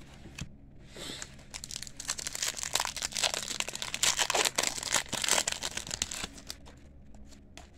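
Foil wrapper of a 1991 Pinnacle football card pack crinkling and tearing as it is opened by hand, a dense crackle that starts about a second in and dies away after about five seconds.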